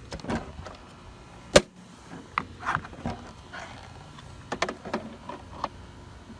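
Handling noises: a scattering of clicks, knocks and rustles, with one sharp snap about one and a half seconds in.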